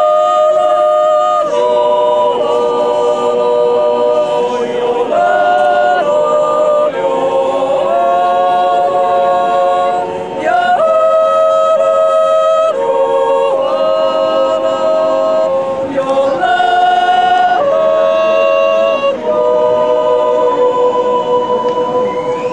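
Swiss folk choir of men and women singing a cappella in harmony, long held chords that change together every second or two. The last chord is held and fades out near the end.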